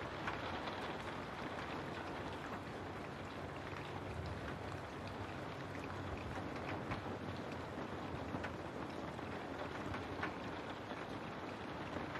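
Steady rain: an even hiss with faint, scattered drop ticks.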